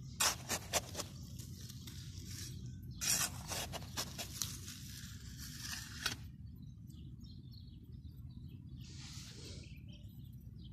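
Small metal hand trowel scraping and scooping into dry, stony soil: a quick run of sharp scrapes in the first second, another longer bout from about three to six seconds in, then only a low steady background noise with a brief soft hiss near the end.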